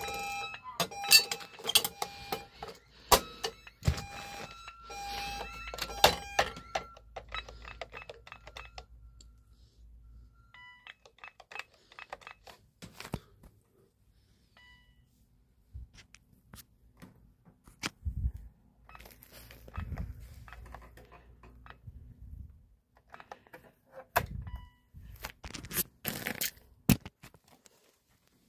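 Alarm system keypad giving a run of short electronic beeps at two pitches for about the first six seconds, then scattered clicks and knocks of handling with a few faint beeps later.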